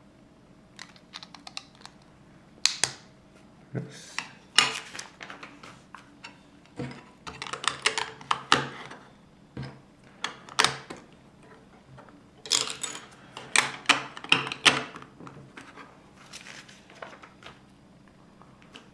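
Plastic LEGO bricks and plates clicking and clattering as they are handled and pressed together: irregular sharp clicks coming in clusters, with short quiet gaps between.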